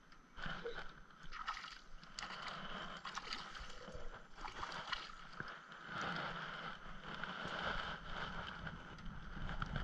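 Water splashing and sloshing mixed with rustling and clicking handling noise, as a hooked crappie is brought in and lifted from the water.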